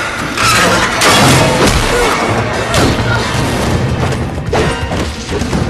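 Animated fight-scene sound effects: a string of crashes and heavy impacts, about five hits spread over a few seconds, over a dramatic music score.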